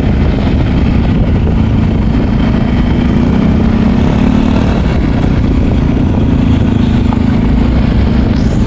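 Motorcycle engine running steadily while riding, with a constant low hum and rushing noise.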